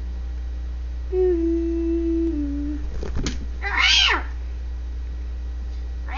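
Domestic cat meowing: a long, low, level meow starting about a second in, a thump around three seconds, then a shorter, higher meow that rises and falls. A steady low hum runs underneath.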